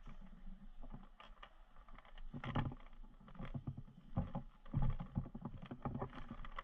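Irregular soft thumps and rustling, with clusters of sharper knocks in the middle and near the end.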